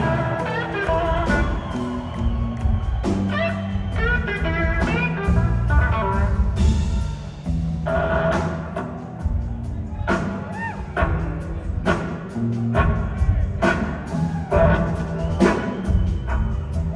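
Live blues-rock band playing loud: electric guitar lead with bending notes over drums and bass.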